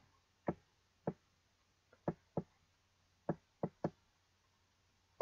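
About seven short, sharp clicks at irregular intervals, the kind a computer mouse makes as it is worked to scroll and click through a web page.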